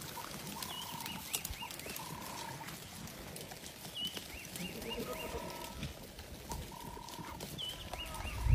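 Birds calling in the bush: a high phrase of a hooked note and a few quick notes recurs about every three seconds, with lower, even whistled notes repeating in between. Faint clicks of twigs are heard as Boer goats browse the shrubs.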